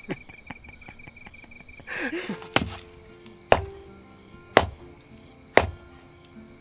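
Background music with a slow beat: a sharp percussive hit about once a second over sustained low tones, coming in about two and a half seconds in.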